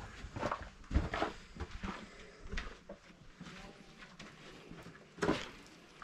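Footsteps on a hiking trail: irregular thuds and scuffs, a louder one about five seconds in.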